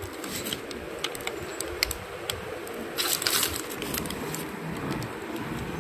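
Crinkling and rustling of a sandwich's paper wrapper being handled: a run of small crackles, busiest about three seconds in.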